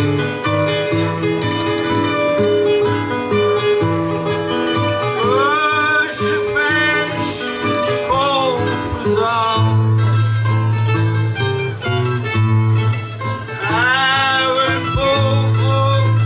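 Acoustic guitar and other plucked string instruments playing a traditional folk accompaniment, with a man singing phrases over it about five seconds in and again near the end.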